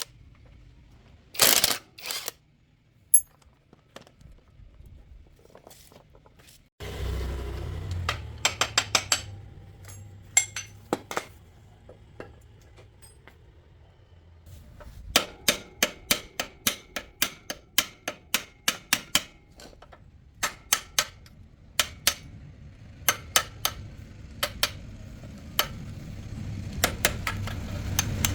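Hand tools clinking and tapping on metal bicycle parts: scattered sharp taps, then runs of quick light strikes, about three or four a second, with pauses between. A low steady hum comes in about a quarter of the way through.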